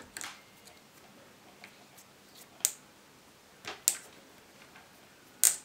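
A handful of small, sharp, irregular clicks from the turret of a Center Point riflescope as a hex key tightens the screw that locks the turret cap after it is reset to zero.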